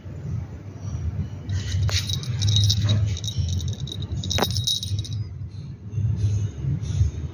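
A small jingle bell jingling in bursts, shaken in two main spells about one and a half and four seconds in, with lighter jingles later. A low steady rumble runs underneath.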